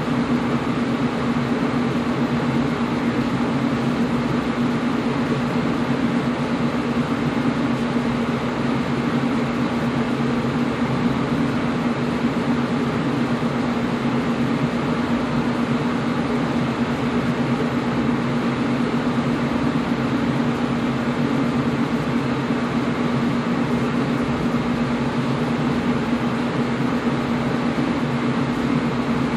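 Air conditioner running steadily: a constant rushing hiss with a low hum underneath.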